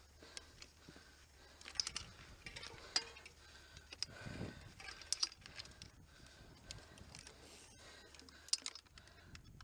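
Scattered small clicks, taps and scrapes of gravel, bike and riding gear as a crashed mountain biker shifts on rocky ground beside his bike, with a short low sound about four seconds in.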